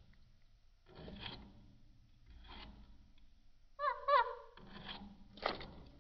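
Budgerigars calling: short raspy chatter bursts about a second in, two and a half seconds in and near the end, with two quick pitched chirps about four seconds in.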